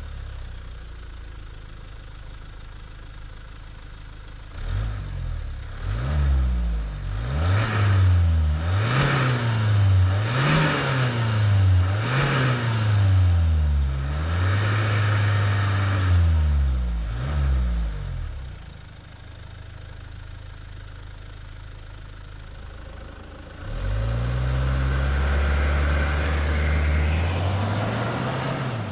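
A 2020 Kia Sorento's 2.2-litre turbo-diesel four-cylinder idles just after starting. From about five seconds in it is revved in a series of quick blips, about eight, each rising and falling. It settles back to idle, then near the end the car pulls away under acceleration with the engine note climbing.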